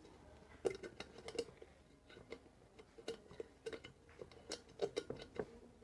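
Small wrench working a nut loose on an electric kettle's base: irregular light metal clicks and taps, starting about half a second in.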